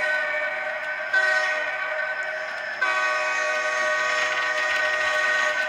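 Diesel locomotive horn sound from a model train, a multi-note chord sounded in blasts. A fresh blast begins about a second in and another at about three seconds, which is held and then starts to fade near the end.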